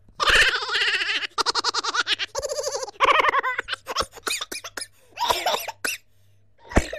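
Laughter in several separate bursts of quick ha-ha pulses, with a short thump near the end.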